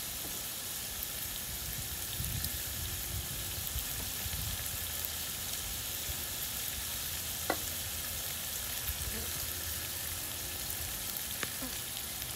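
Cubes of chuck roast beef sizzling in a large metal pot, a steady frying hiss as the meat browns, with one sharp click a little past halfway.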